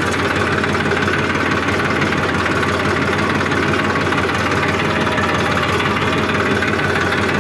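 Massey Ferguson tractor's diesel engine running steadily as the tractor drives along, heard from the driver's seat.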